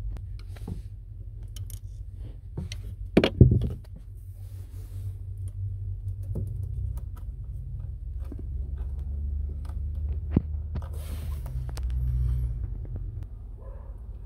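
Scattered metallic clicks and scrapes of hand tools and a hose clamp being worked loose on a boat engine's raw water pump hose, with a sharp clack about three seconds in, over a steady low rumble.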